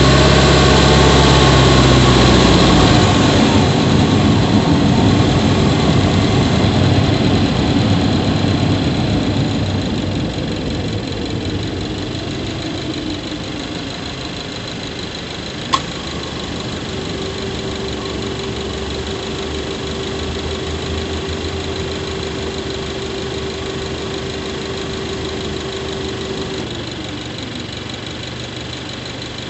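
Subaru Levorg 1.6GT-S's turbocharged 1.6-litre flat-four heard from inside the engine bay by the intake, running with its revs falling over the first few seconds and then settling and getting quieter. A single sharp click comes about halfway, and a steady humming tone is held for several seconds after it.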